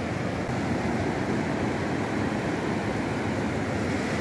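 Ocean surf breaking on a sandy beach: a steady, even rush of waves.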